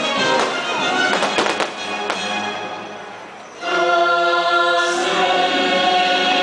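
Fireworks show soundtrack music with a few firework bangs in the first two seconds; the music fades down, then a choir comes in with sustained chords about three and a half seconds in.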